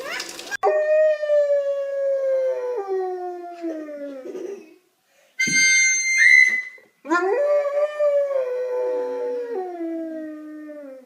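Dog howling: two long howls, each sliding down in pitch in steps, with a short high-pitched sound between them about five and a half seconds in.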